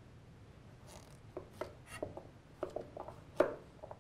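Kitchen knife cutting a carrot into chunks on a cutting board: a string of short knocks at irregular spacing as the blade goes through the carrot onto the board. They begin about a second in, and the loudest comes a little after three seconds.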